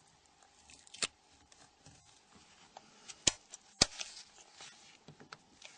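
Tweezers and small tools handling the plastic parts of a Nokia 3250 while the coax cable support tape is peeled off: scattered small sharp clicks, the loudest a little after three seconds in and just before four seconds in, with faint rustling between, over a faint steady hum.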